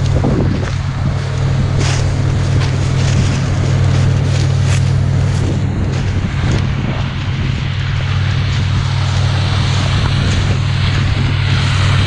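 Combine harvester running with a steady low drone while it harvests corn. Wind rumbles on the microphone.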